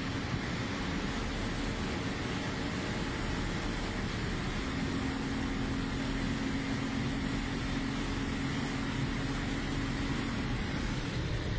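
Car driving at very high speed, heard from inside the cabin: a steady engine drone over road and wind rumble, the drone growing stronger about four and a half seconds in.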